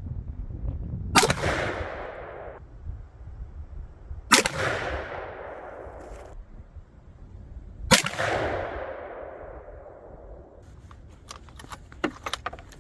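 Three rifle shots about three seconds apart, each followed by a long echoing tail, fired while sighting in at a target range. A few light clicks and rattles near the end.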